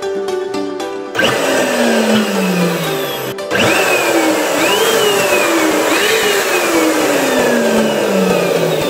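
Electric balloon pump motor starting about a second in and running as it inflates a latex balloon, its whine repeatedly sliding down in pitch and jumping back up. Background music is heard before the pump starts.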